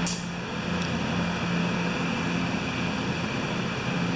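Steady machine hum with a hiss over it, and a light click or two near the start.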